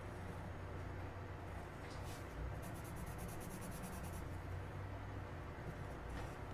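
Coloured pencil scratching across the smooth side of cold-press mixed-media paper. It comes as short strokes, with a run of quick back-and-forth strokes in the middle as a shape is filled in.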